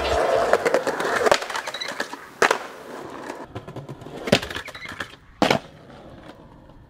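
Skateboard on concrete: wheels rolling and clattering, then three separate sharp board clacks and impacts, about two and a half, four and a half and five and a half seconds in, with the rolling fading away after the last one.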